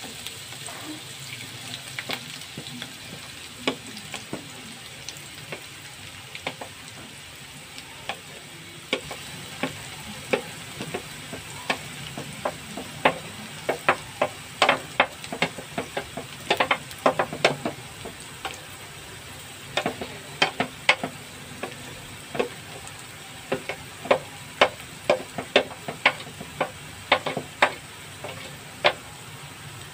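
Chopped onions frying in hot oil in a frying pan: a steady sizzle with sharp pops and crackles, which come much more often after about the first ten seconds.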